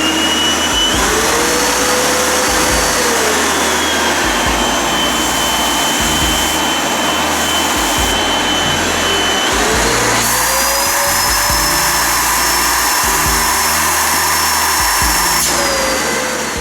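FIRST FA-5545-3 vacuum cleaner running: a loud, steady rush of air with a motor whine that rises as it starts, shifts in pitch several times, and drops away at the very end as it is switched off.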